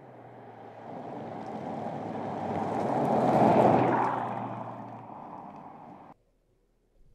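2015 Mercedes-Benz S 65 AMG Coupe driving past, its twin-turbo V12 and tyres building to a peak about three and a half seconds in and then fading away. The sound cuts off suddenly about six seconds in.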